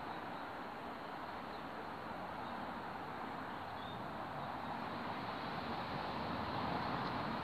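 Steady outdoor background rush, like distant traffic, swelling slightly near the end.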